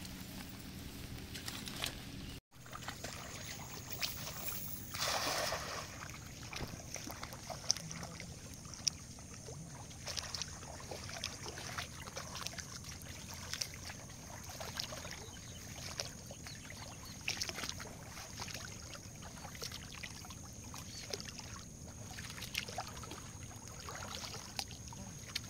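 A person wading through shallow floodwater, each step a short splash or slosh about once a second, over a faint steady wash of water. A thin, steady high tone hangs in the background.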